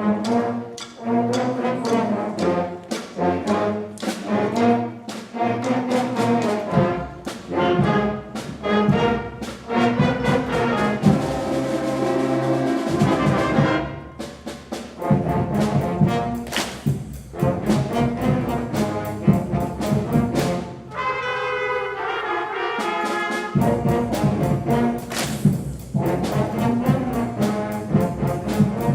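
A school concert band of 5th and 6th graders playing, with trombones and baritones carrying the melody over the rest of the band and percussion. The notes come in a steady rhythm, with a few sharp percussion hits.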